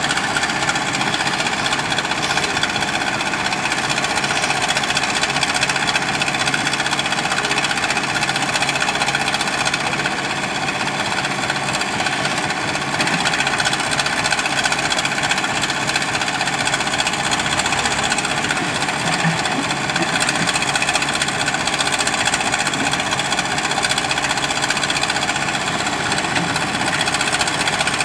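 JCB 3DX backhoe loader's diesel engine running steadily under load while the backhoe arm digs gravel.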